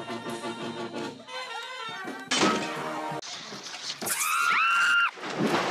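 Brass band music played close up, breaking off about a second in; then a loud crash-like burst and, near the end, a high gliding cry.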